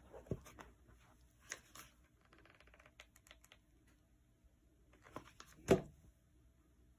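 Faint handling sounds of felt being glued down with a hot glue gun: scattered small clicks and rustles, a brief rapid ticking a couple of seconds in, and one sharper click about three-quarters of the way through.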